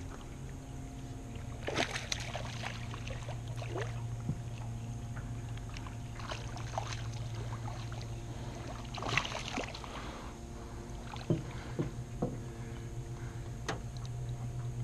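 A hooked fish splashing at the water's surface as it is reeled in to a small boat. The biggest splashes come about two seconds in and again around nine seconds, with smaller ones near the end, over a steady low hum.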